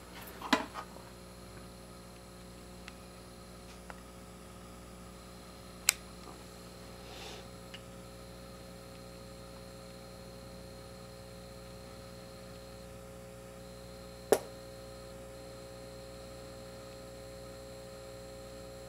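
Steady electrical mains hum from a powered-up Marshall JCM2000 DSL100 valve amp head running on a variac, with a faint high whine above it. A few sharp clicks break in, one about six seconds in and the loudest about fourteen seconds in.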